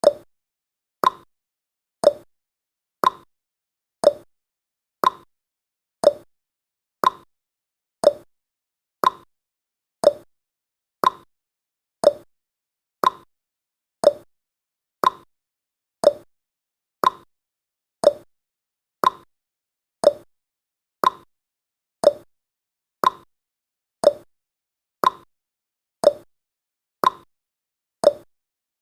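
Countdown timer's tick sound effect: a short, sharp tock once every second, evenly spaced with silence between.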